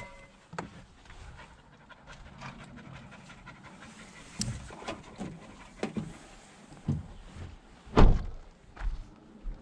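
Pointer dogs panting after field work, with scattered light knocks of gear being handled; about eight seconds in, the van's rear tailgate slams shut with a loud thump.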